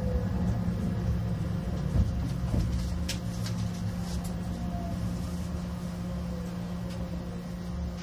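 Cabin of a JR West 683-series electric limited express train moving along a station platform: a steady low rumble and hum with a faint gliding whine. A few sharp clicks come about three seconds in, and the whole sound slowly gets quieter.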